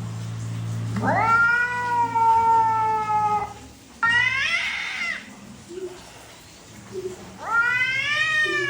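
Three long, drawn-out calls from a pet animal. Each rises quickly at the start and then slides down in pitch, and the second is shorter than the others.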